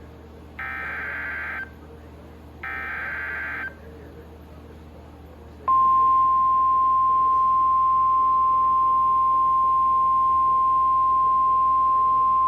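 Emergency Alert System flash flood warning: two buzzy, warbling SAME header data bursts of about a second each, then a pause. A little under halfway through, the single steady NOAA Weather Radio attention tone of about 1050 Hz starts, louder, and holds.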